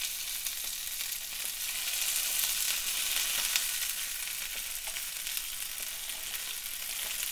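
Quarter-pounder burger patties sizzling on a hot George Foreman contact grill: a steady high hiss of fat frying, a little louder about two seconds in.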